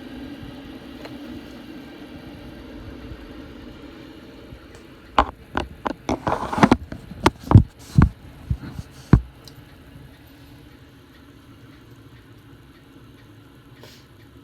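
Mr. Coffee Cafe espresso machine brewing: a steady low hum, then a run of about a dozen sharp pops and spits over four seconds or so, before it settles back to a quiet hum.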